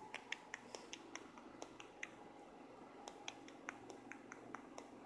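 Small dog licking and nibbling a person's fingers: faint, quick, irregular wet clicks and smacks, several a second.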